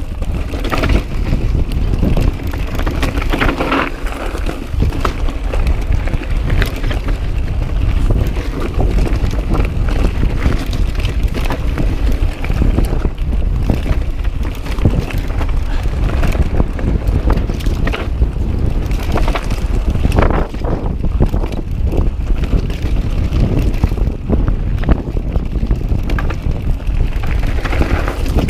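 Wind buffeting the microphone in a continuous low rumble, over the irregular rattling and knocking of a mountain bike rolling fast over a rough, rocky dirt trail.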